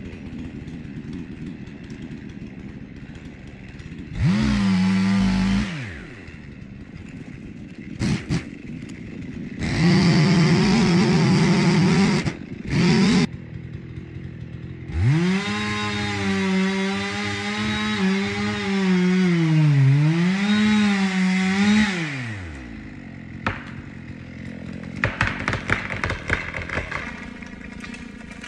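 Husqvarna 55 Rancher two-stroke chainsaw with a 16-inch bar, cutting into a large pine. It idles between several bursts of full throttle, the longest about halfway through, with its pitch sagging under load. Near the end comes a run of sharp cracks as the trunk gives way and the tree starts to fall.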